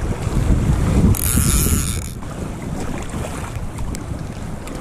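Wind buffeting the microphone in a low rumble, over rushing creek water, with a sharp hiss lasting about a second, starting about a second in.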